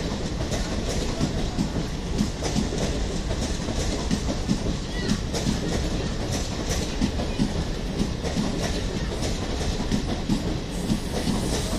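Passenger coaches of an Indian Railways train rolling past on the track: a steady rumble with a clickety-clack of wheels crossing rail joints.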